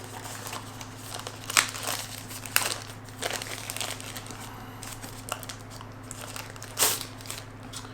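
Plastic packaging crinkling and rustling as drone accessories are handled, with a few sharper clicks along the way. A steady low hum runs underneath.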